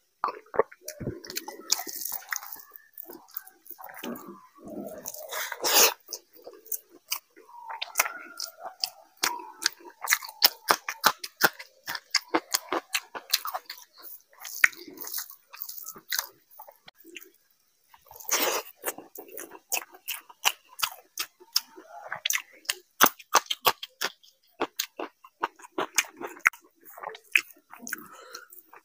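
Close-miked chewing of mutton curry and rice: a steady run of wet mouth smacks and sharp clicks, with the rice squished through the gravy by hand between mouthfuls.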